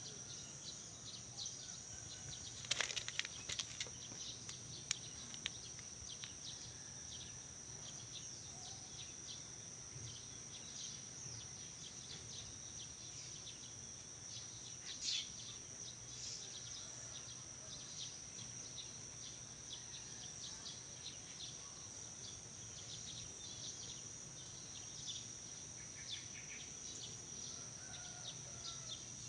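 Outdoor ambience: a steady high-pitched insect drone with scattered short chirps and ticks over it, and a few sharper clicks about three seconds in and again near the middle.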